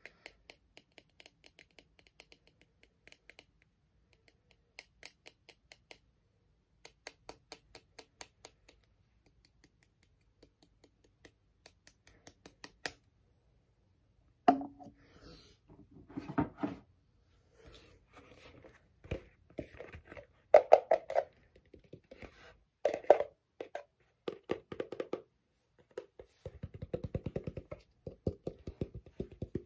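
Fingernail and fingertip tapping on household objects: bursts of quick, light ticks on a small white object, then, after a short pause, louder, irregular knocks and scrapes. Near the end comes fast, even tapping on a red object with a deeper tone.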